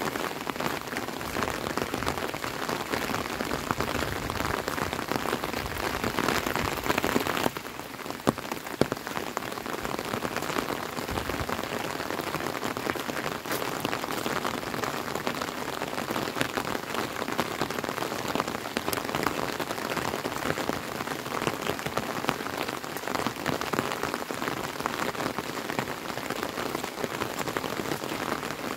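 Steady rain falling. It is a little louder for the first seven seconds or so, then drops back suddenly, with a few sharp taps just after.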